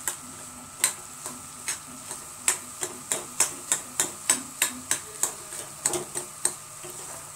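A metal spoon scrapes and clinks against a steel kadhai while stirring cooked chickpeas. The strokes come as sharp clicks, speeding up to about three a second after a couple of seconds and stopping shortly before the end.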